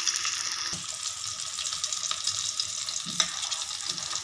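Breaded chicken burger patties shallow-frying in hot oil in a pan: a steady sizzle with fine crackling, and a couple of brief clicks.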